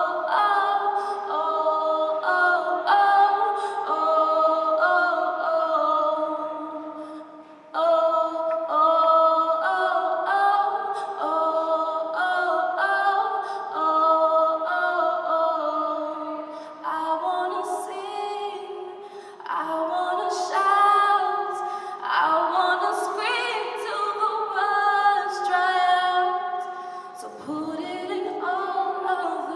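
An a cappella vocal group singing sustained chords in close harmony, with no instruments, in held wordless or sung-vowel phrases. There is a short break in the phrasing about seven seconds in, and the singing softens near the end.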